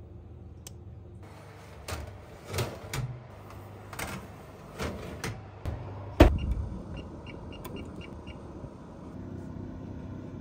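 A baking tray going into an oven: a run of clicks and knocks, then the oven door shut with a loud knock about six seconds in, over a steady low hum.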